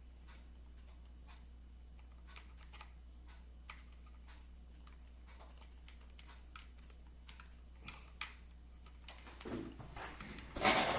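Scattered faint clicks and taps of hard plastic toy parts being handled, as small plastic guns are pushed and twisted into the mounts of a Stridor toy horse. The handling noise gets busier near the end.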